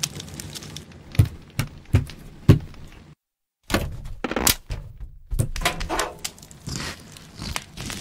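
A run of sharp knocks, four hard ones spaced about half a second apart, then a brief dead drop-out a little over three seconds in, followed by scattered lighter clicks and crackles.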